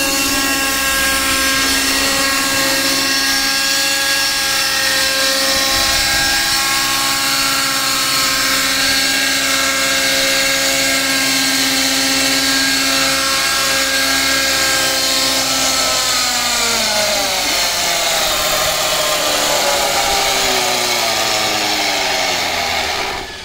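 Nitro RC helicopter's two-stroke glow engine and spinning rotor running at steady high revs on the ground, then winding down with a falling pitch over the last several seconds as it is throttled back toward idle.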